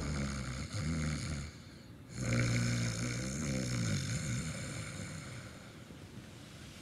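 A woman snoring in deep sleep: two long snores, the second starting about two seconds in and trailing off.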